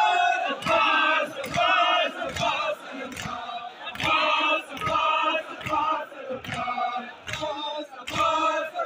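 A crowd of men chanting a lament together in rhythm, with sharp beats about twice a second from hands striking chests: matam, the Shia mourning practice of chest-beating.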